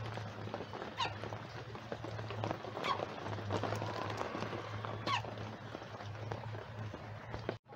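Steady rain pattering and dripping in a tarp-covered chicken run, with three short, falling, squeaky calls from the chickens spread through it.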